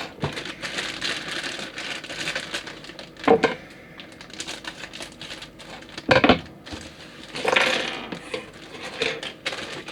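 Small plastic model-kit parts and runners being handled and taken off the sprues: light plastic clicking and clatter, with sharper snaps at the start, about a third of the way in and a little past the middle, and a longer scrape near the end.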